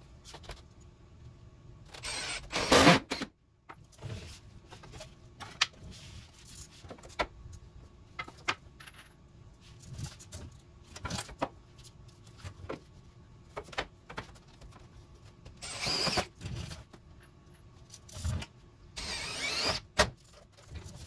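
Cordless drill running in short bursts, about two seconds in, around sixteen seconds and again near the end, as it drives screws into wooden ceiling boards. Between the bursts come scattered clicks and small metallic rattles from screws and the tool being handled.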